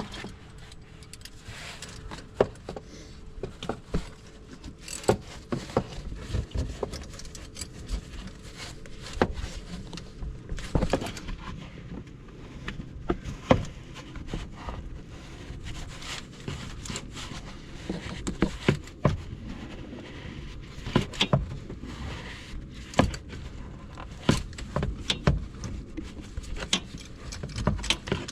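Irregular metallic clicks, clinks and scrapes of hand tools working at the oil filter of an ATV engine during its removal, with many separate sharp knocks spread through the stretch.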